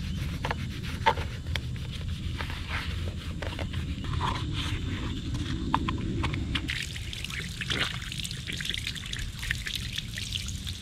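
Soapy rag scrubbing and squelching over a plastic car interior trim panel, with small clicks of hands and panel. About two-thirds of the way in, water from a garden hose starts splashing and trickling over the panel to rinse off the suds. A steady low rumble runs underneath.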